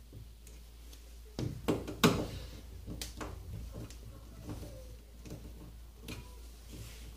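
A few light knocks and clicks as a plastic shelf support is pressed into its hole in an IKEA PAX wardrobe's side panel and pushed home with a screwdriver. The loudest come between about one and a half and two seconds in, with fainter ticks after.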